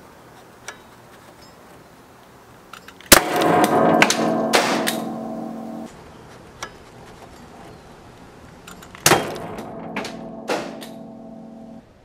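A Ramset powder-actuated nail gun firing into the shackle of a steel U-lock: a sharp bang followed by a couple of seconds of metallic ringing as the shot knocks the shackle straight off. The bang and ringing come twice, about six seconds apart, the second followed by a smaller knock.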